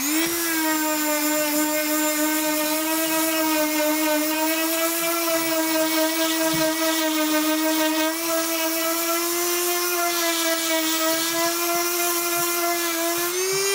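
PRIMERO corner (detail) sander switched on and sanding an SPF pine board: a steady electric motor hum with the rasp of sandpaper on wood. Its pitch rises slightly near the end.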